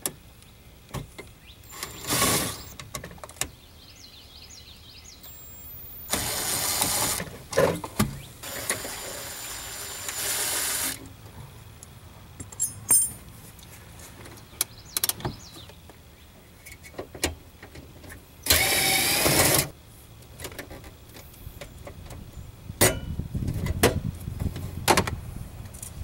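Cordless drill-driver spinning in four short runs, backing out the mounting screws of a trailer brake controller under a pickup's dash, with clicks and knocks of handling tools and plastic parts between the runs.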